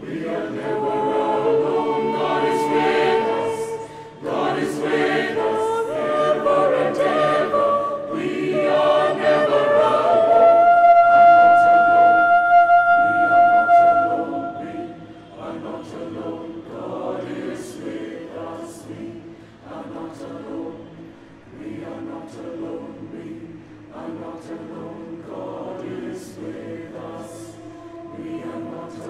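Mixed choir of men and women singing in harmony without accompaniment. It is full and loud at first, with a long held high note near the middle, then drops to a softer passage about halfway through.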